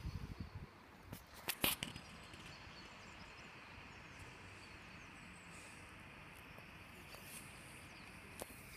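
Quiet outdoor background hiss, broken by a few handling knocks and clicks in the first two seconds.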